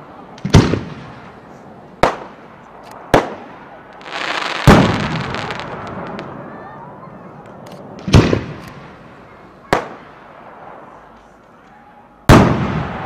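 Aerial firework shells bursting at close range: about seven sharp booms at irregular intervals, each trailing off in a rolling echo. A rising hiss leads into one of the loudest booms about halfway through.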